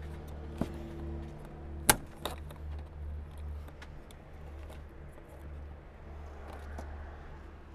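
Plastic retaining clip of a car's interior light being pressed and popped loose: one sharp click about two seconds in, with a few lighter clicks and taps around it, over a steady low hum.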